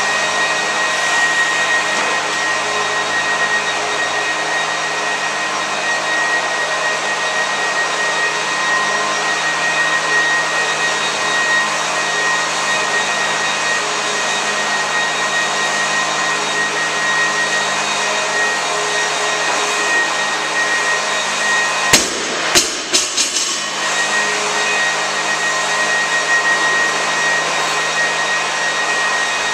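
Steady loud rush of a large drum fan running throughout. About three-quarters of the way through, a loaded barbell with bumper plates is dropped onto the rubber floor and bounces with several quick sharp impacts.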